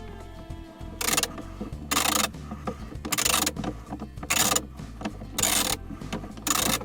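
Socket ratchet wrench on a long extension bar undoing a battery hold-down bolt: six short rasping bursts of ratchet clicking, about one a second.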